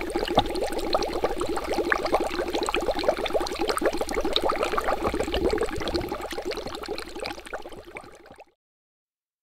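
Twin-bubble plastic fermentation airlock on a fermenter bucket lid bubbling fast, a dense run of small gurgles and pops as carbon dioxide pushes through the water in it: a sign of vigorous active fermentation. The bubbling fades out and stops about eight and a half seconds in.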